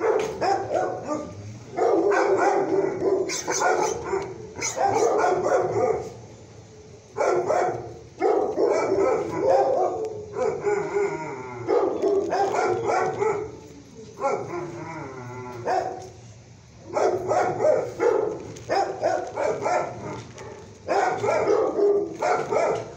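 Shelter dogs barking over and over in runs of a few seconds, with short breaks between, and a brief wavering howl about two-thirds of the way through.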